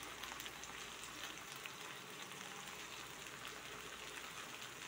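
Potatoes and eggplant frying in oil in a pan: a faint, steady sizzle with light crackling.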